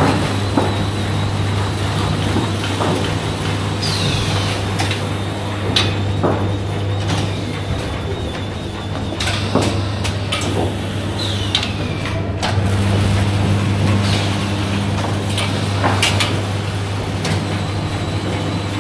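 FXP-99 grapefruit peeling machine running: a steady motor hum under repeated clicks and knocks as its knife arms cycle against the spinning fruit. The hum fades for a few seconds about halfway through and then comes back, and a falling whine sounds twice.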